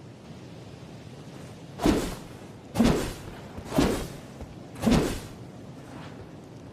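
Katana sword sound effect: four short, sharp sword strokes, about a second apart.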